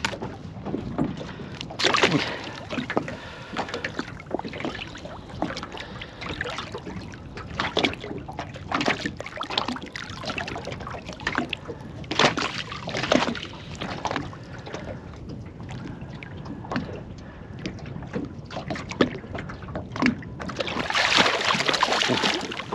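Water splashing and sloshing at the side of a small boat as a mulloway (jewfish) is held in the water to be revived and released, in irregular splashes with a louder rush of splashing near the end.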